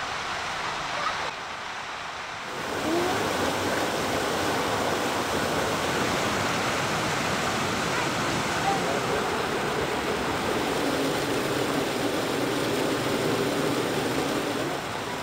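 Waterfall pouring into a rocky gorge: a steady rush of falling water that gets louder about two and a half seconds in.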